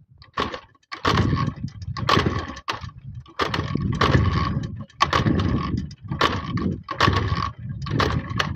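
A JAWA 350 two-stroke motorcycle being kickstarted over and over, about once a second. The engine turns over with each kick but does not catch and run. The bike is proving hard to start.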